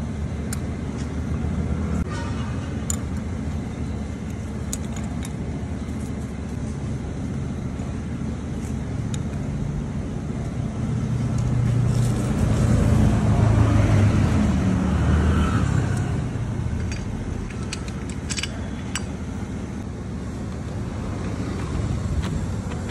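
Steady low rumble of motor traffic that swells, as of a vehicle passing, about halfway through, then settles again. A few light metallic clicks of clutch plates being handled.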